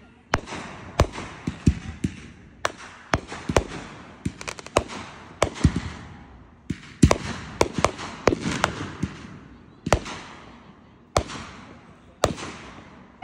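Consumer aerial fireworks launching and bursting overhead: about twenty sharp bangs at an irregular pace, each trailing off in a crackling hiss, with brief lulls between volleys.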